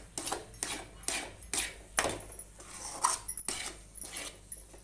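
Spoon scraping the bottom of a metal pan while stirring thick moong dal halwa, in quick repeated strokes about two to three a second.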